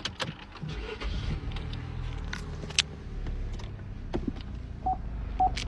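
A car engine running with a steady low hum, several sharp clicks, and two short beeps near the end.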